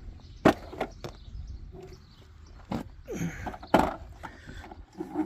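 A few sharp knocks and thumps of a heavy skid steer tire being handled and set down for weighing, the loudest about half a second in and just before four seconds, with a brief scraping slide in between.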